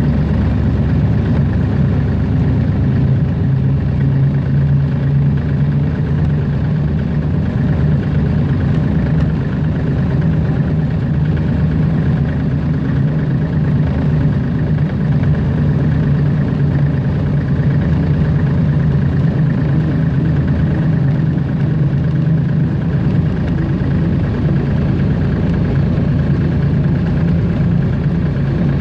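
Hunslet narrow-gauge diesel locomotive's engine running steadily as the locomotive travels along the track, heard from the driver's position just behind the bonnet, with a loud, even hum.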